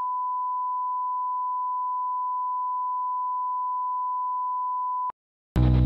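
A steady pure line-up test tone, a single unwavering pitch, held for about five seconds and then cutting off sharply. After a brief silence, music starts just before the end.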